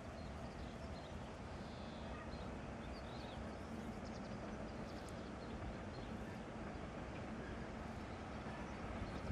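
ÖBB Taurus electric locomotive hauling a passenger train on its slow approach: a steady low rumble and hum that grows slightly louder.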